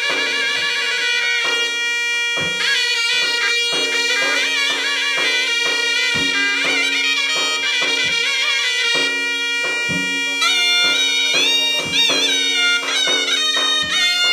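Zurna (Turkish shawm) playing a fast, ornamented folk melody over a steady held drone note, with occasional low thumps.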